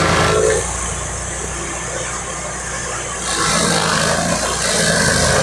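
Tracked stump grinder's engine running, growing louder with added hiss about three seconds in.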